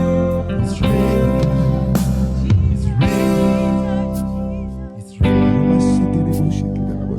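Worship band music: sustained chords with guitar and a singing voice. The music thins out and dips briefly about five seconds in, then comes back in full.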